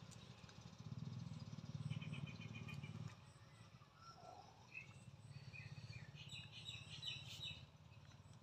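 Birds chirping in short trills of rapid repeated notes, twice, over a faint steady low hum that drops off about three seconds in.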